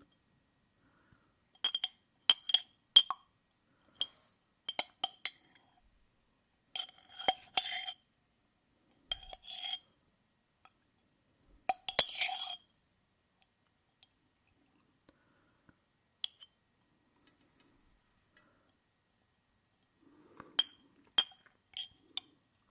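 Cutlery clinking against glassware: repeated sharp, ringing taps in small clusters, with a quiet stretch in the middle and a few more clinks near the end.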